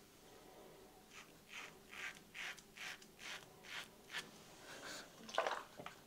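King C Gillette double-edge safety razor scraping through lathered stubble on a with-the-grain pass. A quick run of short strokes, about three a second, then a pause and one louder stroke near the end.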